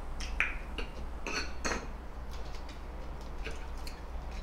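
Utensils clicking and scraping against a glass salad bowl as salad is tossed and served: a few light clicks, with the loudest scrapes about a second and a half in.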